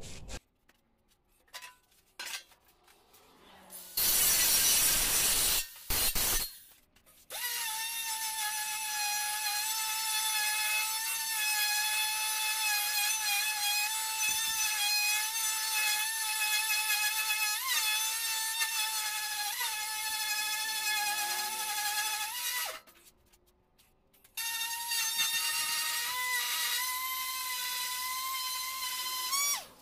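Electric detail sander running on bare sheet steel, a steady high whine with a rasp of the pad on the metal. It is switched off about 23 seconds in and on again a second and a half later. A short burst of loud harsh noise comes about four seconds in, before the sander starts.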